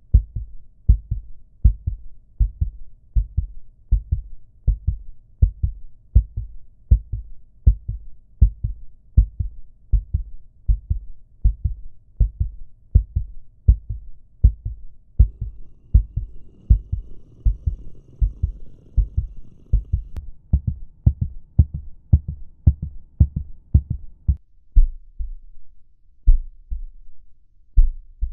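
Heartbeat sound effect: a steady run of low lub-dub thumps that slows near the end.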